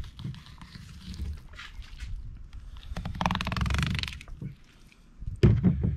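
Fillet knife cutting and scraping along a bluefin tuna's spine, with a burst of fast ticking about three seconds in as the blade rides over the bones, under a low rumble of handling; a loud low thump near the end.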